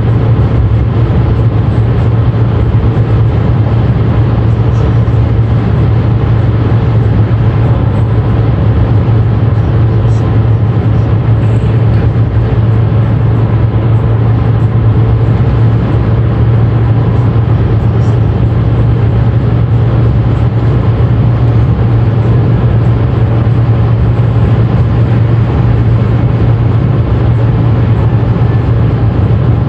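Steady road and engine noise inside a car cabin at motorway speed, with a strong low hum underneath.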